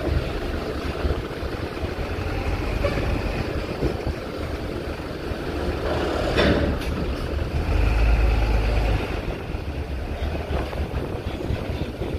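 Heavy trucks' diesel engines running during ferry loading, with strong wind buffeting the microphone. A brief sharp noise about six seconds in, and a heavier low surge a little after.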